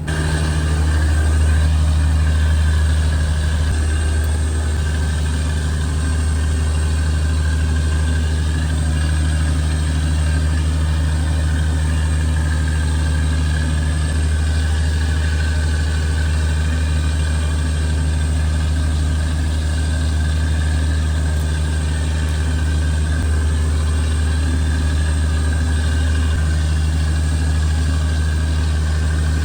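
Fishing boat's engine running steadily, a loud unbroken low hum as the boat heads back to shore.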